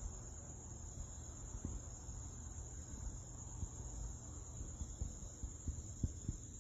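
Night insects trilling in a steady high-pitched drone, over a low rumble with a few soft knocks, the loudest about six seconds in.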